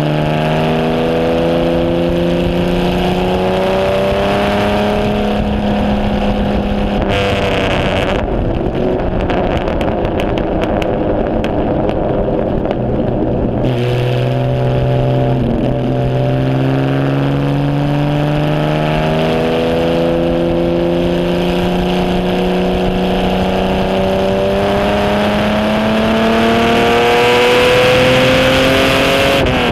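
The 1951 HW Alta-Jaguar's Jaguar straight-six running at race pace, heard from its open cockpit: the revs climb steadily in long pulls, dip about a quarter of the way in, and drop sharply at a gear change near the end.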